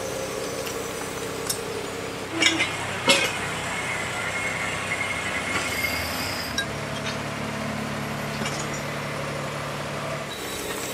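Rear-loading garbage truck running, its bin lifter tipping wheeled bins into the hopper, with a steady mechanical hum. Two sharp clinks come a few seconds in, and a deeper, stronger hum sets in about two-thirds of the way through and stops shortly before the end.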